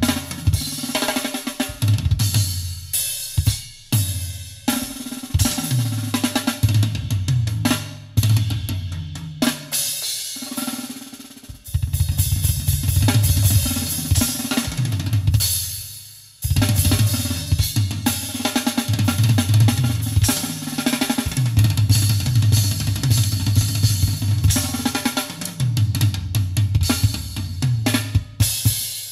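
Jazz-fusion drum kit and bass played back through a custom car audio system and heard inside the car's cabin. Kick, snare, cymbals and hi-hat run over a deep, rhythmic bass line. The music breaks briefly twice, about midway.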